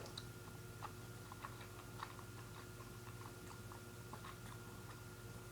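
Faint chewing of gummy fruit snacks: small irregular mouth clicks and squelches over a steady faint hum.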